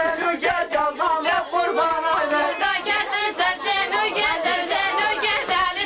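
A group of women singing together, several voices overlapping and wavering, with a regular beat running under the singing.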